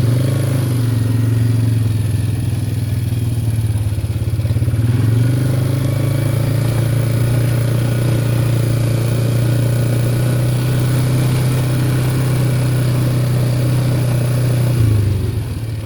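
ATV engine running at a steady speed under way, with a short dip in engine speed near the end.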